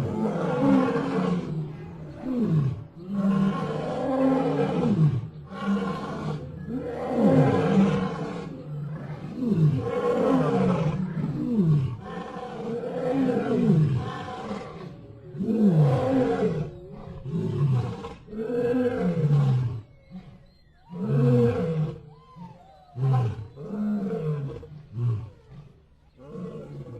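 Desert lion roaring in a long bout of calls, each falling in pitch, about one every two seconds; after about twenty seconds the calls turn shorter and more spaced out.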